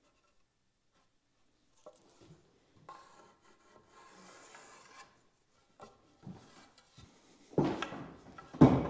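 Wooden trim boards being handled: a faint rasping rub of wood on wood for about two seconds, then a few light knocks and two loud wooden thumps near the end.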